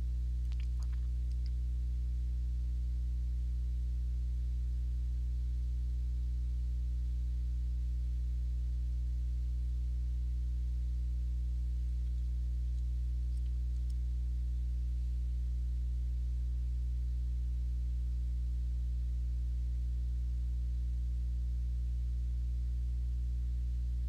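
Steady electrical mains hum: a low, unchanging buzz with a stack of overtones, and a faint tick about a second in.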